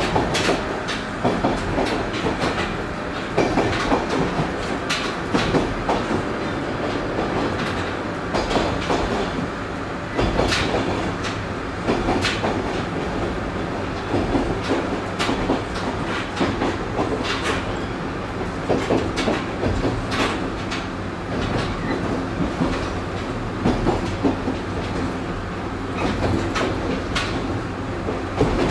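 JR West 103 series electric commuter train running, heard from inside the passenger car: a steady rumble and hum with the wheels clacking over rail joints again and again.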